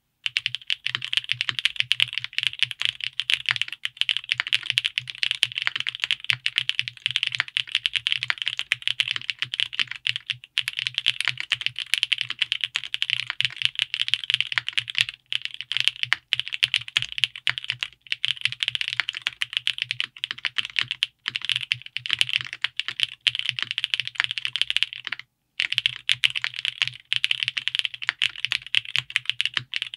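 Fast, continuous typing on an Owlab Vento 80 gasket-mount mechanical keyboard with GMK ABS double-shot keycaps: rapid key clicks with brief pauses around 10 seconds and 25 seconds in.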